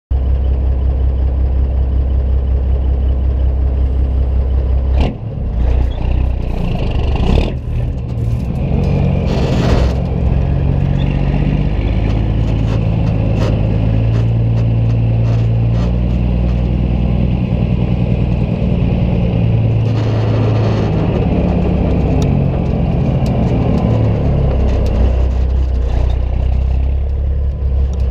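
Caterpillar 3406E inline-six diesel of a 1998 Peterbilt 379, heard through 7-inch straight pipes while pulling a loaded trailer of about 100,000 lb gross. The exhaust drone rises and falls in pitch, with brief dips about five and eight seconds in.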